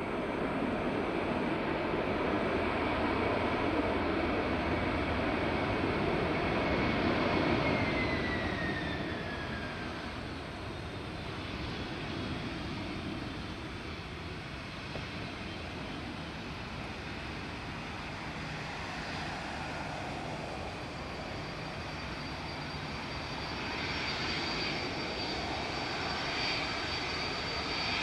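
Boeing 767-300ER airliner's jet engines running during landing: a steady high whine over a broad rumble, loudest about seven seconds in, then the whine drops in pitch as the jet passes. A quieter engine sound follows, with a new thin high whine from about 24 seconds in.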